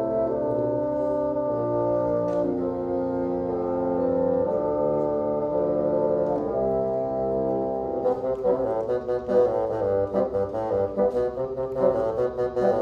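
Bassoon quartet playing a slow chorale in long, held chords; about eight seconds in it cuts to a fast, lively piece in quick, short, detached notes.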